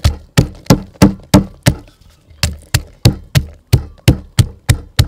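A wooden pestle pounding garlic cloves in a mortar, about three sharp thuds a second with a brief pause about two seconds in.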